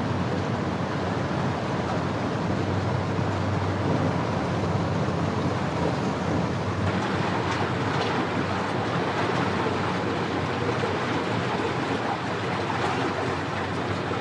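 Steady rushing of river water with the low drone of a motor barge under way; the rushing gets a little brighter about seven seconds in.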